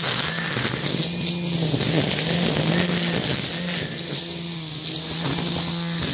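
Milwaukee M18 Fuel cordless brushless string trimmer running at speed, its motor whine sagging in pitch again and again under load and recovering as the spinning line cuts through weeds, with a strong hiss from the whipping line.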